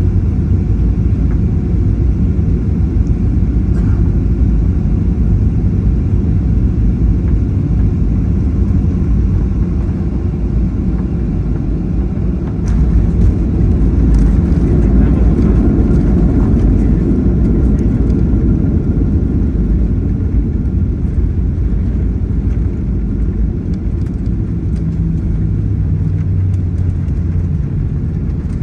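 Cabin noise of a Boeing 737-800 landing, heard from a seat over the wing: a steady rumble of its CFM56 engines and airflow on final approach, then touchdown about thirteen seconds in. The rumble grows louder for a few seconds as the wheels roll on the runway, then eases as the jet slows.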